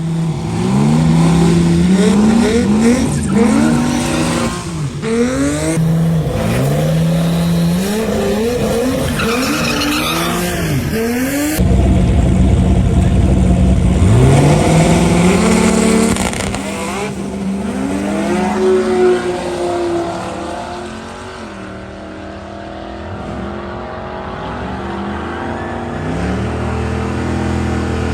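Turbocharged 4.8 LS V8 in a Foxbody Mustang, revved again and again with its pitch climbing and dropping. About twelve seconds in it cuts abruptly to a louder full-throttle run, its pitch climbing in long sweeps as it pulls, easing off, then rising again near the end.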